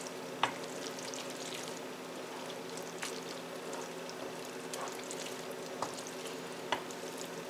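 Spatula stirring and tossing spaghetti through a creamy sauce in a simmering nonstick skillet: a soft, wet stirring and sizzle with a few light knocks of the spatula against the pan, the sharpest about half a second in. A steady low hum runs underneath.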